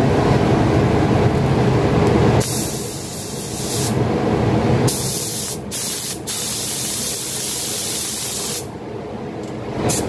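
Gravity-feed air spray gun hissing in trigger pulls: a burst of about a second and a half, then a longer spray of nearly four seconds broken twice for an instant, and a short blip near the end. A low rumble runs under the first couple of seconds.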